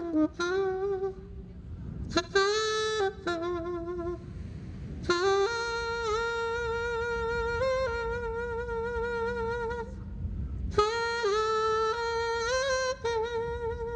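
A single saxophone playing a slow melody in long sustained notes, with short pauses between phrases and one long held note in the middle.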